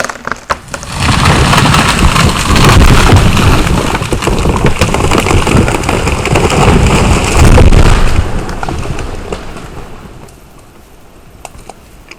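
A giant old-growth tree, about 14 feet across, felled and crashing down: a few sharp cracks, then a long, heavy crash with a deep rumble that swells for several seconds and dies away near the end.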